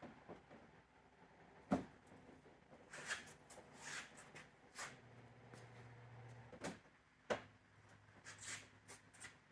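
Scattered light knocks and clicks of things being handled, with one sharper knock about two seconds in, and a low steady hum for about a second and a half in the middle.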